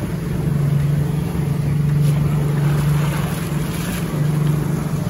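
Motorboat engine running steadily with a low, even hum, under wind and water noise.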